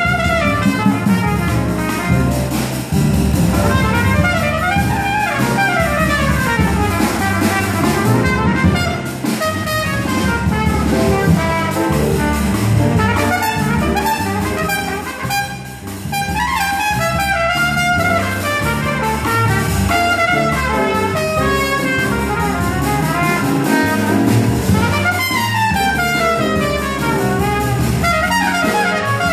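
Live small-group jazz: a trumpet solos in quick rising and falling runs over upright bass and drums.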